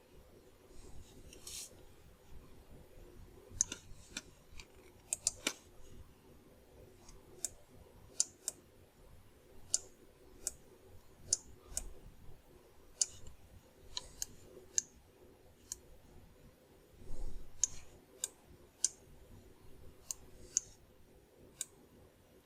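Irregular, sparse clicking of a computer mouse and keyboard while sculpting in software, with a faint steady hum underneath.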